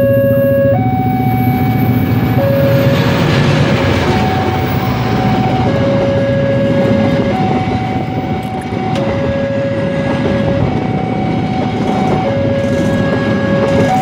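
Passenger train hauled by a diesel locomotive passing close by at a level crossing: a steady rumble of wheels on rail and engine, loudest a few seconds in as the locomotive goes past. Over it the crossing's electronic warning alarm alternates between a low and a high tone, each held about a second and a half.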